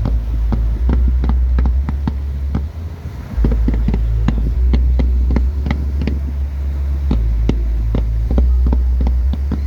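Fireworks going off: a steady run of sharp bangs and crackles, a few a second, over a deep low rumble.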